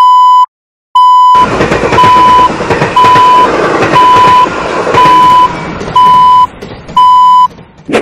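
Railroad crossing warning signal beeping, a steady single-pitched tone repeated about once a second, eight times. Under the beeps, a passing train rumbles and clatters from about a second and a half in, fading near the end.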